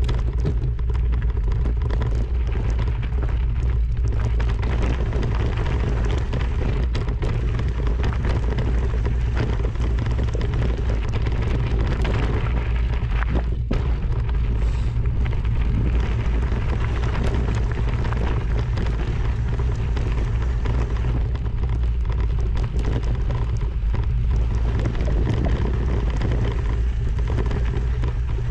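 Wind buffeting on the microphone: a heavy, steady low rumble with an even hiss over it, unbroken throughout.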